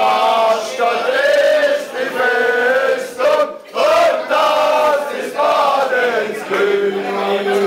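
A group of men chanting and singing together in loud, pitched phrases of about a second each, breaking off briefly about three and a half seconds in and holding one note near the end: a celebratory chant over a trophy.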